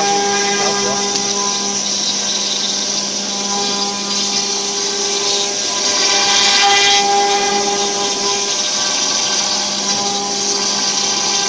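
CNC router spindle running with an end mill cutting into a wooden door blank: a steady whine under the hiss of the cut. The cutting noise swells for a moment about six seconds in.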